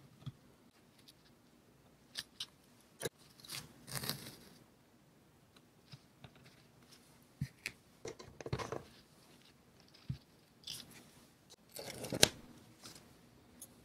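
Close-up paper-craft handling sounds: short rustles and crinkles of washi tape and paper, with scattered taps and clicks from a craft tool on the journal page. The loudest is a sharp click with a crinkle near the end as a sticker sheet is handled.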